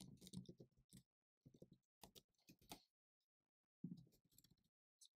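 Near silence with faint, scattered keystrokes on a computer keyboard as a line of code is typed.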